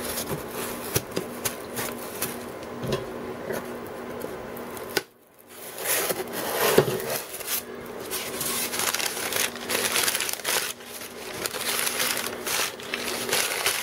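Hands unpacking a foam-lined cardboard shipping box: irregular scraping, knocks and clicks from the cardboard and foam, then crumpled packing paper rustling. The sound drops out briefly about five seconds in.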